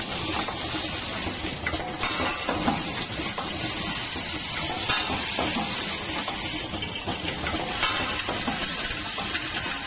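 Automatic wedge anchor assembly machine running: a steady mechanical hiss and rattle of small metal parts, with occasional sharp metallic clicks.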